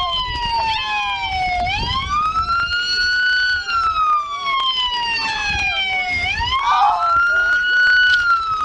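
Police car siren wailing, its pitch climbing over a second or two and then sliding slowly down over about three seconds, twice, with low rumbling handling noise beneath it.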